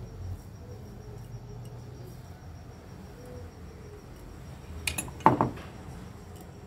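Quiet kitchen background with a low hum and a faint, steady high-pitched pulsing trill, broken about five seconds in by a brief sharp clatter.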